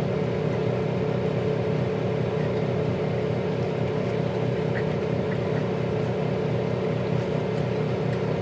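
Emerald 25L digital air fryer oven's fan running on after the cook cycle has stopped, a steady even hum.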